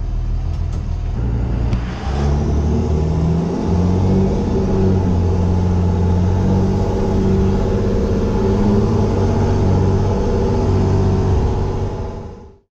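24-valve Cummins inline-six turbo diesel of a school bus running under way, its pitch stepping up about two to four seconds in and then holding steady; the sound fades out near the end.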